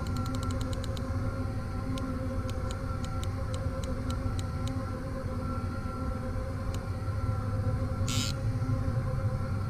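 Steady low mechanical drone with a constant hum, under the clicking of a conventional fishing reel being worked during a fish fight. A quick run of clicks comes in the first second or so, with scattered single clicks after. A short hiss comes about eight seconds in.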